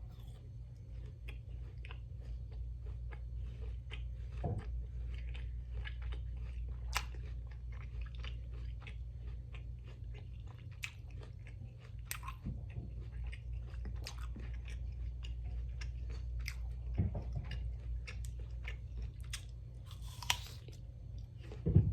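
Close-up biting and chewing of a caramel apple, a run of crisp crunches and crackles, over a steady low hum.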